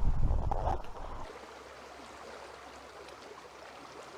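A loud low rumble for about the first second, then it cuts off abruptly to a creek's water running steadily and softly.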